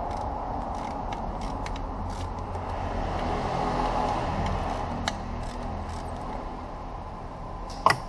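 Hand tools, a ratchet and socket, working the intake manifold bolts: scattered light metallic clicks over steady workshop noise, with one sharper clack near the end.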